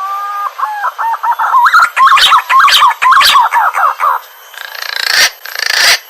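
Green pigeon (punai) song: a couple of drawn-out rising whistles, then a quick run of warbling whistled notes that rise and fall, followed by a few harsh, hissy notes near the end.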